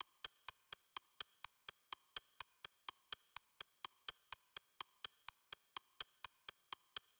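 Steady ticking: sharp, evenly spaced clicks at about four a second, stopping just before the end.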